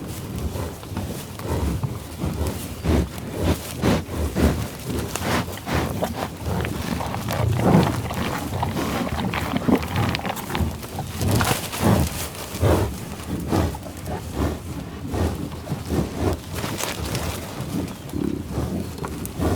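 Buffaloes growling and lowing in a run of short, irregular calls. The loudest come about eight and twelve seconds in.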